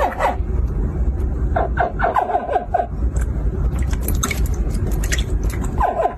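Hatchling crocodiles chirping in short runs of quick, falling-pitched calls, over a steady low rumble.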